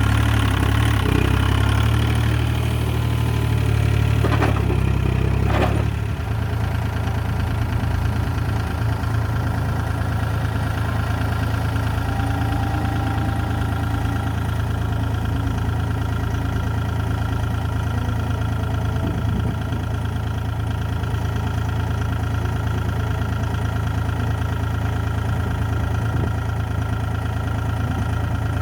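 Hitachi EX30 mini excavator's diesel engine running, louder for the first six seconds with two sharp knocks, then dropping to a steady idle-like run.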